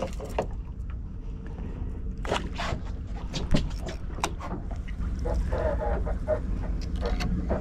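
Fishing boat's engine running with a steady low rumble, with scattered short clicks and knocks on board.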